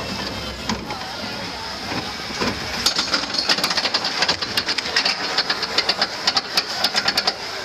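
Roller coaster train rolling onto the lift hill, then climbing it with a rapid clicking, several clicks a second, starting about three seconds in: the anti-rollback catches ratcheting along the chain lift.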